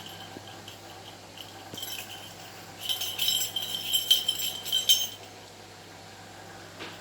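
Small metal objects jingling and rattling for about two seconds, starting about three seconds in, over a faint steady hum.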